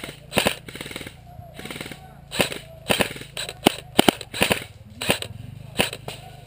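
Airsoft guns firing single shots: about a dozen sharp pops at irregular spacing, roughly half a second apart, some in quick pairs.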